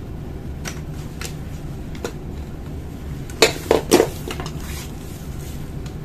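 Hard clicks and clacks of a 49A/53A laser toner cartridge being handled as its retaining pins are worked out with pliers: a few single clicks, then a quick cluster of louder clacks about three and a half to four seconds in.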